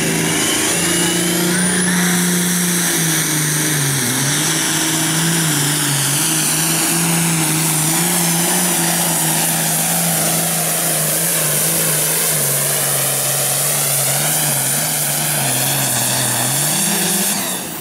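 A 466 cubic-inch diesel pulling tractor running at full throttle under heavy load as it drags a weight-transfer sled. The engine note holds fairly steady, dipping briefly twice as it bogs and recovers. It rises once more and then drops off near the end as the pull finishes.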